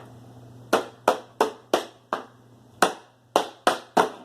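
Nine sharp smacks in an uneven run, each dying away quickly, with a short pause after the fifth.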